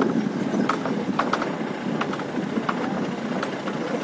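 Mahindra Bolero Pickup crawling over a rough, rutted dirt track: steady engine and road noise with a few faint knocks and rattles from the truck.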